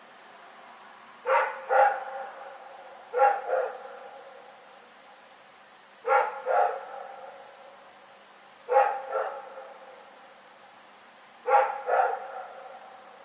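A dog barking in pairs: two quick barks, repeated five times about every two and a half to three seconds, each pair echoing briefly.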